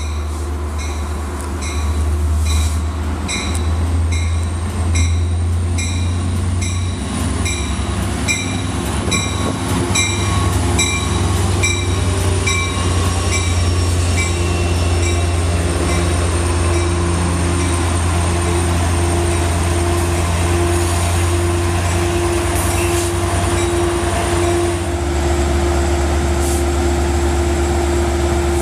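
An EMD DE30AC diesel-electric locomotive rumbles past, leading a Long Island Rail Road train into the station, with its bell ringing about twice a second over the first half. In the second half a steady squeal from the train's wheels joins the rumble as the coaches roll by.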